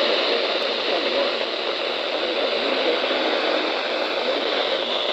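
Steady hiss of radio static from a weather radio receiver tuned to a NOAA Weather Radio frequency.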